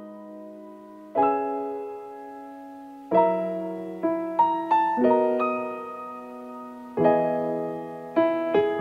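Nord Stage keyboard playing a slow, gentle solo piano introduction: chords struck every second or two, each ringing out and fading, with a few quicker notes near the end.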